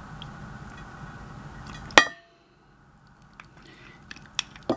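Meat juice from a glass canning jar of home-canned beef pouring into a crockpot with a steady trickling hiss, which ends about two seconds in with one sharp ringing clink of the glass jar against the crock. A few faint small clicks follow.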